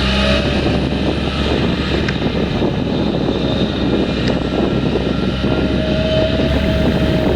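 Potato harvesting machinery running steadily: diesel engine noise under a continuous rattle and clatter of the harvester's workings, with a whine that rises in the last couple of seconds.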